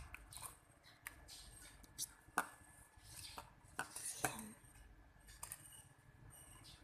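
Homemade glue slime being kneaded by hand in a bowl, giving off irregular sticky clicks and taps, two of them louder about two and a half and four seconds in.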